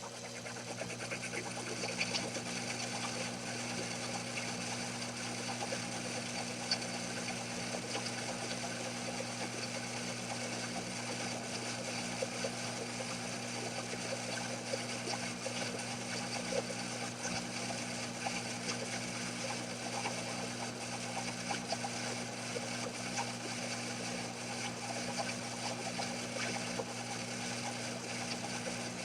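Small metal-working lathe running, its motor giving a steady hum with a light scattered crackle on top, rising in level as it comes up at the start.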